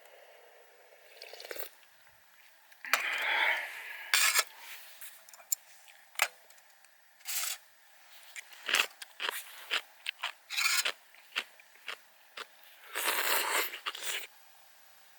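Irregular crunching and scraping: sharp clicks and short rustling bursts at an uneven pace, with two longer crunches about three seconds in and near the end.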